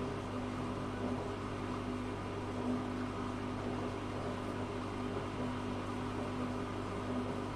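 Zanussi FA623 washing machine running, a steady motor hum with a constant tone.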